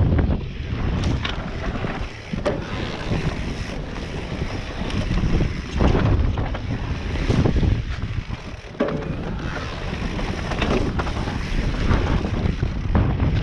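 Wind buffeting the onboard microphone over the rumble of an e-mountain-bike's tyres on a rough downhill trail, with sharp knocks and rattles from the bike over bumps several times.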